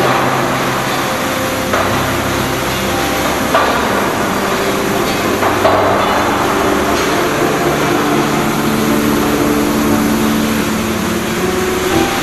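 Sawdust rotary dryer plant running: a steady loud mechanical din with motor hum tones and a few sharp knocks.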